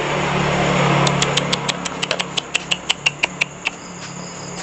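An engine hum that swells to a peak about a second in and slowly fades away, like a vehicle passing. Crickets chirp in a quick, even beat behind it.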